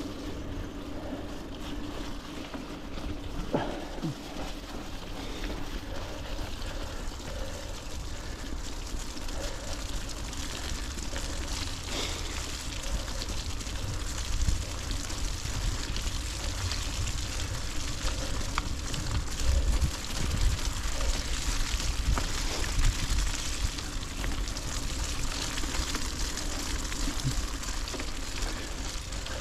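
Mountain bike on Maxxis Forekaster and Aspen XC race tyres rolling through wet mud: a steady rush of tyre and trail noise with a low rumble and scattered small clicks and rattles.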